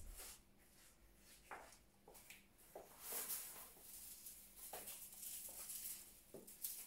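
Faint rustling of flower stems and foliage being handled and placed in an arrangement, with a few light taps.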